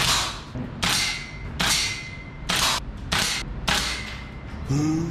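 Seven shots fired in quick succession from a shouldered long gun, each a sharp crack with a short echo off the room, spaced roughly 0.6 to 1 s apart. Background music comes in near the end.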